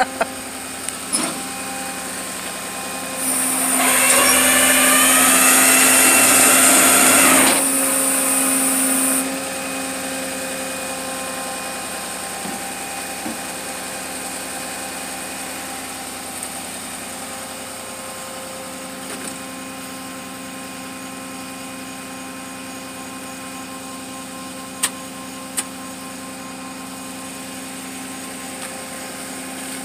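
Rollback tow truck's hydraulics running with a steady hum. From about three seconds in to about nine, a loud hiss with a rising whine as the hydraulics work under load. Two sharp clicks near the end.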